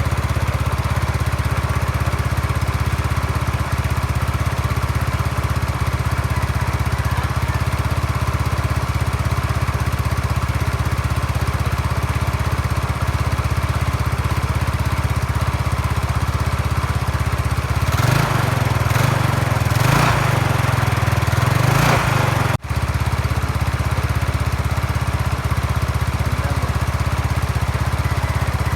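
Yamaha Mio Sporty scooter's single-cylinder four-stroke engine running at a steady idle. It is revved up and down a few times about eighteen seconds in, then settles back to idle after a momentary drop-out.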